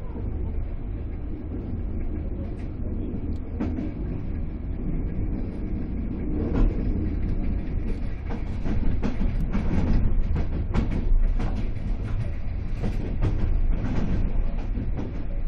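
Ride noise inside a type 156A passenger coach at speed: a steady low rumble from the wheels and running gear on the track. From about six seconds in, a run of sharp clacks, thickest in the second half, as the wheels pass over rail joints and points.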